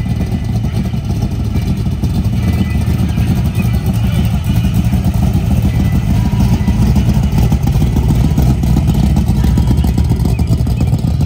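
A car's engine and exhaust running with a loud, rough low rumble at low revs, growing louder over the first six seconds or so and then holding.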